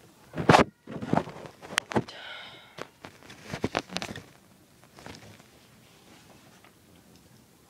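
A person sniffling after a sneeze: several short, sharp sniffs and breaths through the nose, the loudest about half a second in, dying away after about four seconds.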